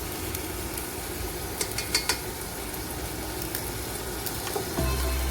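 Beef and bolognese sauce sizzling in a pot while being stirred, with a few sharp clicks of the spoon against the pot about two seconds in. Background music comes back in near the end.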